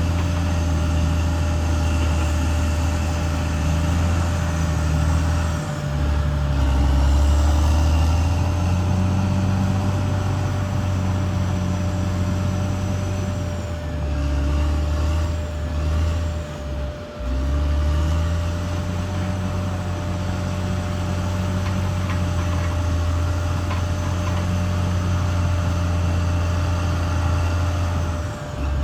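CAT D6R XL crawler bulldozer's diesel engine working steadily, with a steady thin whine over it. The engine note sags and picks back up a few times, around 6, 14 and 17 seconds in.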